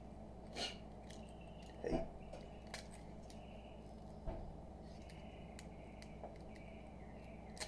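Utility blade cutting a strip of fiberglass mesh drywall tape off the roll, with the roll being handled: a handful of faint, short clicks and scrapes over a low steady hum.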